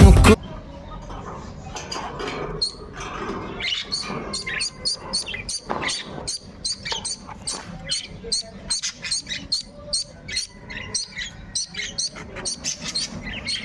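Music cuts off just after the start, leaving budgerigars chattering in a rapid run of short, high chirps and squeaks.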